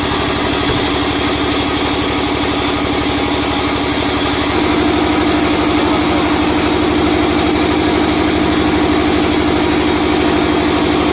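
Sawmill vertical band saw running: a steady machine drone with a fast, even pulse that grows louder and fuller about four and a half seconds in.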